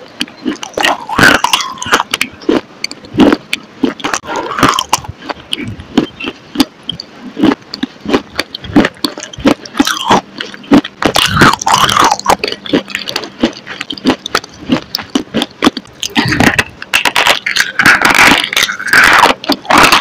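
Close-miked mouth sounds of biting and chewing: rapid, irregular clicks and smacks from lips and teeth held right at the microphone.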